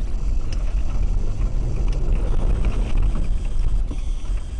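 Dashcam recording of a car driving: a steady low rumble of engine and tyre noise inside the cabin, with a few faint clicks.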